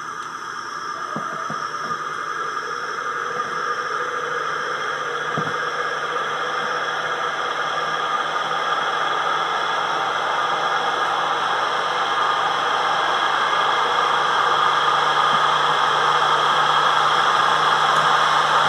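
Wanke spin dryer's motor and drum spinning up: a steady whirring hum that grows gradually louder as it gains speed, running upright on newly replaced rubber mounts.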